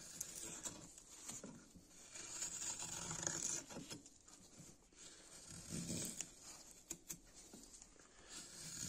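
Freshly sharpened hand-forged spoon-carving hook knife slicing shavings out of a wooden hollow: faint rasping cuts in several slow strokes, each lasting about a second.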